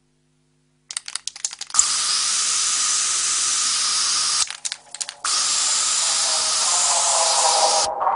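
Aerosol spray-paint hiss: a few short sputtering bursts about a second in, then a steady hiss that breaks into sputters about halfway and resumes, cutting off briefly near the end.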